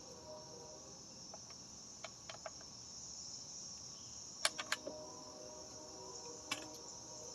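Steady high-pitched insect chirring, with a few light metallic clicks about two seconds in and a louder cluster of clinks a little past the middle, one of them ringing briefly.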